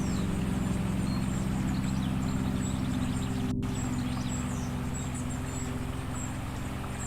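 Meditation music: a steady low drone holding several sustained tones at once, with faint high bird chirps above it.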